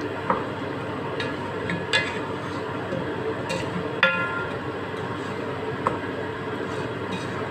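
Wooden spoon stirring spiced lamb pieces in a metal pot, over a steady hiss. Four sharp clinks, each with a short ring from the pot, come about 2 s apart.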